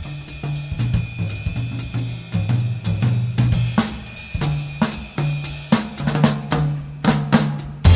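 Background music: a drum-kit beat with snare and cymbals over a bass line.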